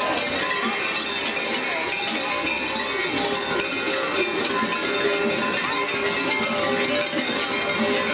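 Many kukeri bells clanging together without a break, a dense jangle of ringing tones as the costumed mummers walk.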